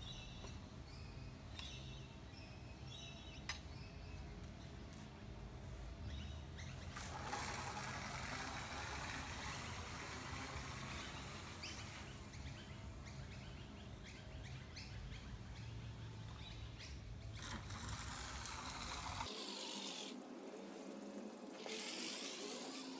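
Outdoor background with birds chirping, and a broad rushing noise that comes in suddenly and lasts about ten seconds in the middle.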